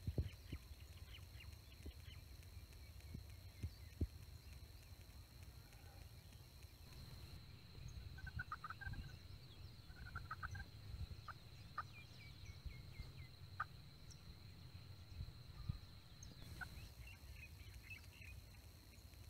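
Rio Grande wild turkeys gobbling faintly, with a few quick series of calls about halfway through, over a low wind rumble. A few soft knocks come near the start.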